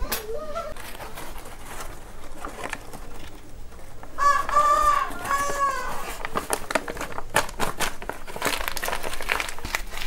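A rooster crows once, about four seconds in, over scattered clicks and rustles from a wire bird cage being handled as a bird is put into it.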